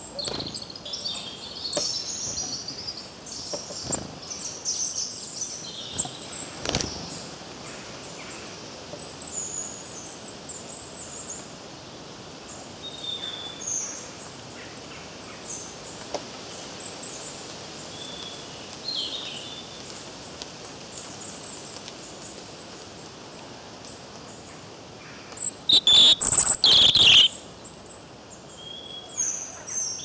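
Small woodland songbirds, a European robin among them, chirping and singing in short, high phrases, with a few soft knocks. About 26 seconds in comes a brief burst much louder than the rest, close to the microphone.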